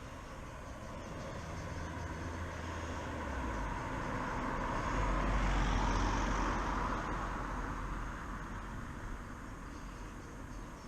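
A motor vehicle passing on the road: its rumble and tyre noise swell to a peak about five to six seconds in, then fade away.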